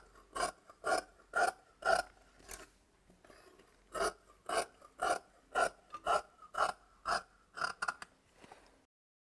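Large tailor's shears cutting cloth, snipping steadily about twice a second with a pause of about a second partway through; the sound cuts out abruptly near the end.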